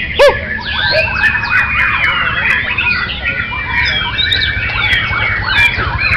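Many caged songbirds singing at once: a dense, unbroken mix of whistles, chirps, trills and sliding notes. One loud, short call falling in pitch stands out just after the start.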